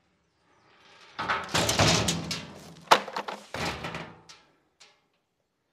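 A large metal truck toolbox scraping and sliding off sawhorses and dropping onto gravel, with a sharp bang about three seconds in as it lands and a sawhorse knocked over, then a last clatter before it settles.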